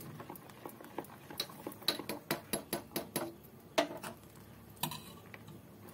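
A steel spoon stirring thick moong dal batter in a plastic bowl, with irregular light clicks and taps of the spoon against the bowl.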